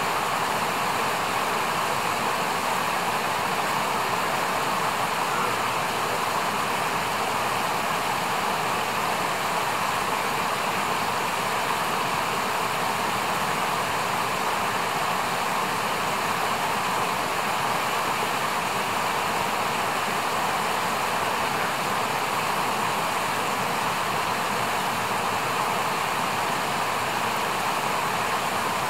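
Steady rush of a fast-flowing mountain river, an even noise without breaks or changes.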